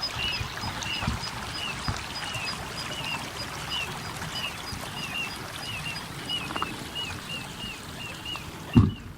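Little ringed plover calling in a rapid series of short, down-slurred notes, about two a second, over a low steady rumble. The calls stop near the end, and a brief loud thump follows.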